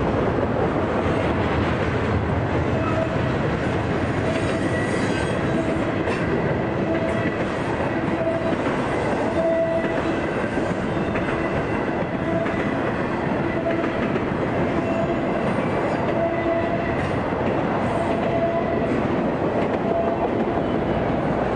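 Freight cars of a Florida East Coast Railway train rolling past close by: a steady rumble and rattle of wheels over the rails. Short faint tones sound over it about once a second.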